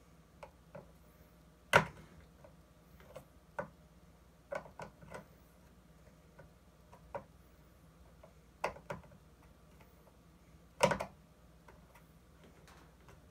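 Irregular clicks and taps of small metal hardware and hand tools as a speaker's mounting screw and nut are handled and fitted, with two sharper, louder clicks about two seconds in and about eleven seconds in.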